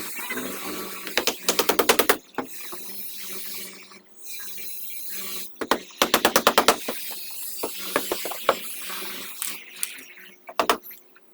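A power tool run in short bursts of rapid rattling strokes, each burst about a second long: one near the start and another about six seconds in. Scattered knocks and clatter fall between them.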